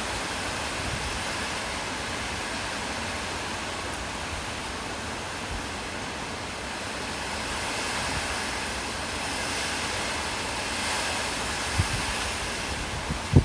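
Typhoon wind: a steady rushing noise that swells a little in the second half, with a few low gusts thumping on the microphone near the end.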